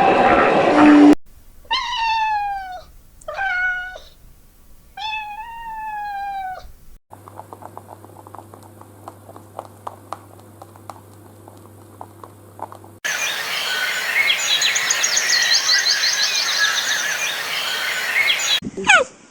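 A cat meowing three times. Each meow is a drawn-out call that falls in pitch. The meows are followed by a stretch of faint rapid clicking over a low hum, then a louder noisy stretch full of fast, high chirping.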